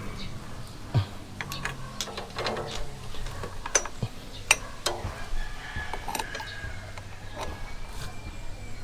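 Irregular metallic clicks and clinks of a motorcycle drive chain being handled, its links knocking against each other and on metal, with sharper knocks about a second in and near the middle.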